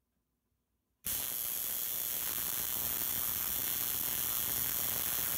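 Homemade spark gap Tesla coil switched on about a second in: the spark gap firing and arcs breaking out from the top load make a loud, steady, hissing buzz. It keeps running, with the spark gap set slightly closer.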